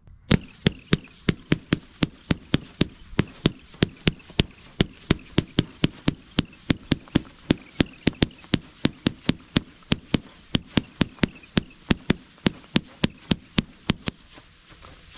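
A consumer fireworks fan cake (S-shaped pattern) firing its shots one after another in a rapid, even string of about fifty sharp reports, three or four a second. It stops about fourteen seconds in.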